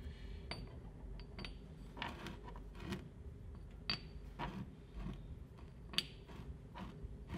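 Light clicks and clinks, spaced irregularly about a second apart, as new roller weights are set one by one into the metal variator housing of a GY6 scooter engine's belt drive.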